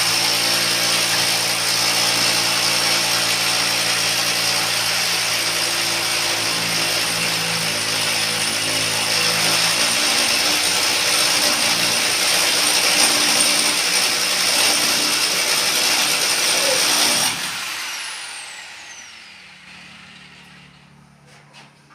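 Electric drill boring into a concrete lintel, running steadily under load. About seventeen seconds in it is switched off and its motor winds down with a falling whine.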